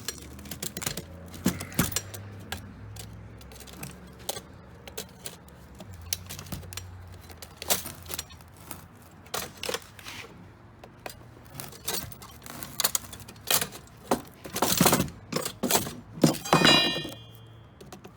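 Scattered clanks, taps and scrapes of hand tools working the metal coin box of a payphone, with coins jingling inside. A louder run of clanks and a ringing metallic clink come near the end.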